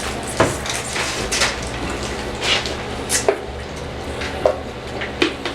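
Scattered light knocks and clatter of objects being handled, about seven sharp hits spread over a few seconds against a steady background hiss.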